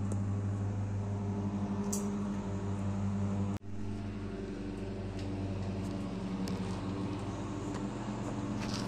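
A steady low mechanical hum, like an engine or motor running, briefly cut off about three and a half seconds in.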